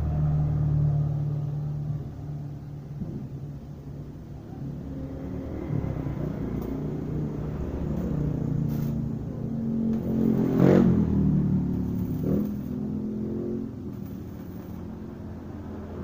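Road traffic passing close by: motorcycle and car engines rumbling past one after another, rising and fading, with the loudest pass about two-thirds of the way through.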